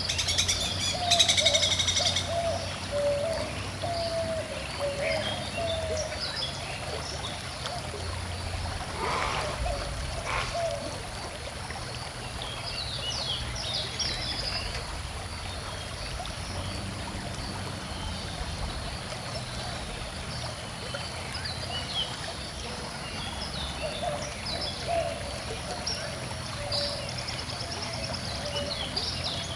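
Birds singing and calling over a gently flowing stream, with a loud burst of birdsong about a second in and a lower, wavering call at the start and again near the end.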